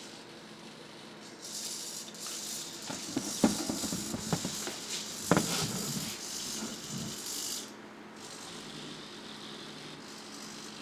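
Hobby servos in a small 3D-printed walking robot whirring in short runs as it moves, stopping briefly near eight seconds, then starting again. Between about three and six seconds there are a few plastic clicks and knocks as it steps, the loudest two a couple of seconds apart.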